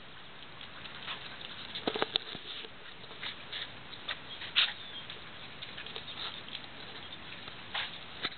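Footsteps on a wooden footbridge: irregular light taps and patter on the boards, with a few sharper knocks about two seconds in and again a little before halfway.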